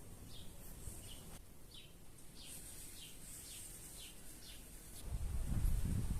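A bird calling over and over in short falling chirps, roughly two a second, over a faint hiss. About five seconds in, a low rumble swells up and becomes the loudest sound.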